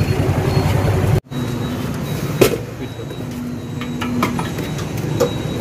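Motor vehicle engine and road noise while driving, cut off abruptly about a second in. Quieter street traffic follows, with a few sharp knocks and a short steady tone near the middle.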